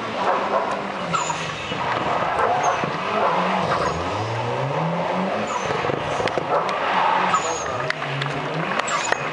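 Rally-prepared Mitsubishi Lancer Evolution's turbocharged four-cylinder revving hard, its pitch climbing and dropping several times as it is driven through tight turns, with tyres skidding on the dusty tarmac and scattered sharp cracks.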